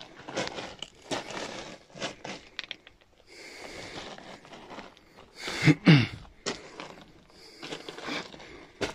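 Someone scrambling over loose rock and gravel: irregular crunches, scuffs and scrapes, with a short grunt about six seconds in, the loudest sound.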